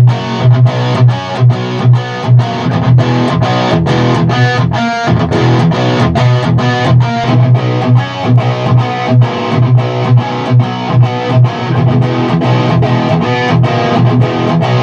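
PRS electric guitar played through an amplifier, picking a repeating pattern of notes in a steady rhythm.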